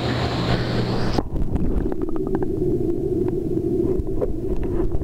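Muffled underwater noise of pool water around a submerged camera. About a second in, a hissy wash cuts off suddenly, leaving a steady low hum and rumble with scattered small clicks.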